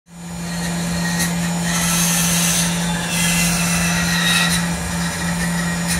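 Tormach 1100MX CNC mill cutting aluminium with an end mill under coolant spray: a steady machine hum under the hiss of cutting and coolant, with higher-pitched cutting noise coming in twice, about two and three seconds in.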